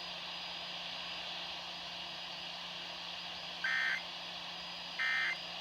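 Steady weather-radio hiss with a faint low hum. Then, about three and a half seconds in, come two short screechy data bursts a little over a second apart: the EAS/SAME end-of-message (EOM) code that marks the end of the alert.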